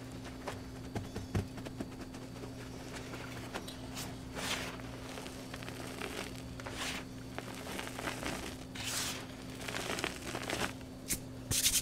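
Hands squeezing and crumbling clumps of blue powder: soft crunching and swishing in several separate strokes, with sharper crackles near the end. A faint low hum runs underneath.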